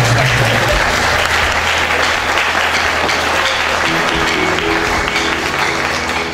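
Audience applauding steadily, with instrumental music playing underneath.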